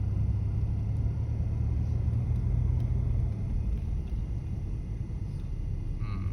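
Car driving slowly on a narrow road, heard as a steady low rumble of tyres and engine that eases slightly about three seconds in.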